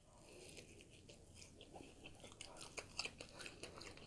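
Faint chewing of a mouthful of fried chicken sandwich: soft, scattered mouth clicks and smacks, coming more often in the second half.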